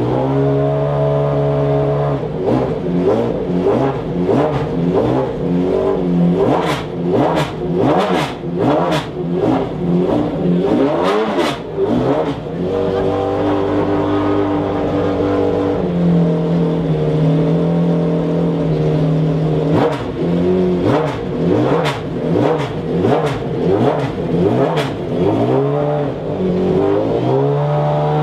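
McLaren F1 GTR Longtail's BMW V12 being blipped again and again while stationary: the revs jump up and fall straight back to idle many times over. It settles into a steady idle for several seconds in the middle, then the blipping starts again.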